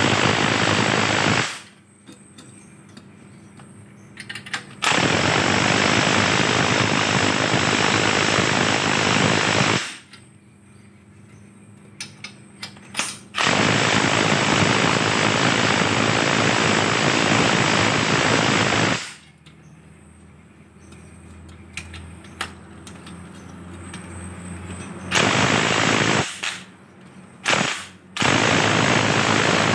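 Bosch impact wrench hammering in five bursts of between one and six seconds each, driving the threaded rods of a coil-spring compressor on a car's front strut. Between the bursts there are quieter clicks and metal knocks of the strut and compressor being handled.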